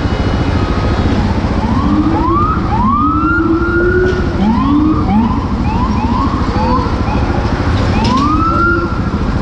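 Emergency-vehicle siren sounding in repeated rising sweeps, some long whoops and, midway, several short quick chirps, over a steady low rumble.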